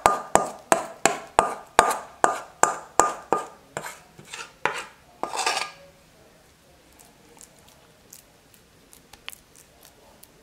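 A utensil scraping and knocking dough out of a ringing mixing bowl into a baking pan, quick regular strokes about two or three a second, stopping about six seconds in; after that only a few faint clicks.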